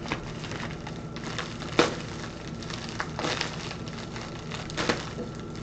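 Plastic packaging crinkling and rustling as it is pulled and torn open by hand, with scattered sharp crackles, the loudest about two seconds in.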